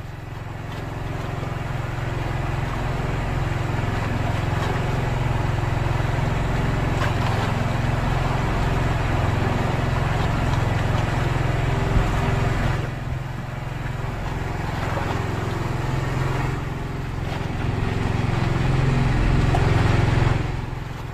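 A small engine running steadily with a low drone, under a broad rushing hiss. The sound dips briefly about thirteen and seventeen seconds in.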